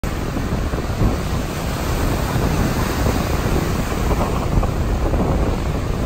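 Rough surf breaking on the beach, stirred up by an approaching typhoon, with strong wind buffeting the microphone in a steady low rumble.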